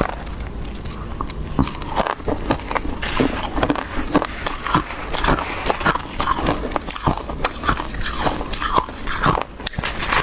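Freezer frost being bitten and chewed close to the microphone: a dense run of sharp, irregular crunches.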